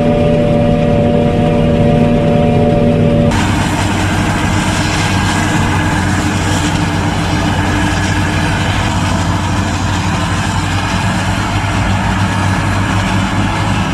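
Claas Jaguar 870 forage harvester heard from inside its cab: a steady engine and driveline hum with several held tones. About three seconds in it cuts abruptly to the machine from outside, a louder, rougher rush of engine and chopping noise as the Bomech Super Bunker tips chopped corn into a forage box.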